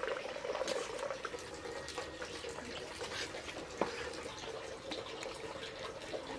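Low steady background hiss with a faint hum, broken by a few light clicks from steel plates and a serving spoon as rice and curry are dished out.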